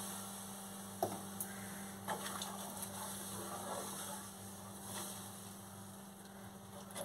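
A spatula stirring a thin, freshly watered curry in a nonstick pan, with a few soft knocks and scrapes against the pan about one, two and five seconds in, over a steady low electrical hum.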